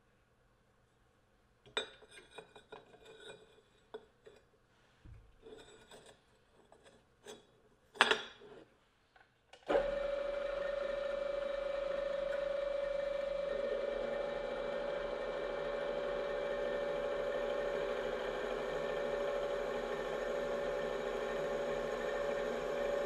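Metal clicks and clunks as a rusty steel plate is set and clamped in a drill-press machine vise, with one sharp knock about eight seconds in. About ten seconds in, the restored 1970s bench drill press's motor switches on and runs with a steady whine. A few seconds later the bit starts drilling into the steel.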